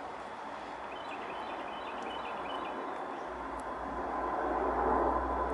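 Amtrak passenger train hauled by an electric locomotive approaching, its rumble on the rails growing steadily louder, with a low hum coming in about three seconds in. Birds chirp over it.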